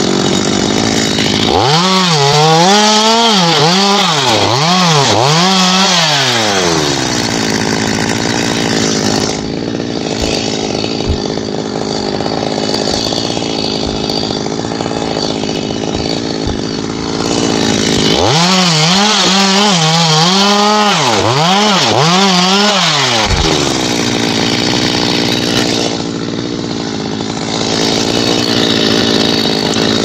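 Chainsaw running throughout. Its engine is revved up and down in quick blips in two spells of a few seconds each, with steady running between.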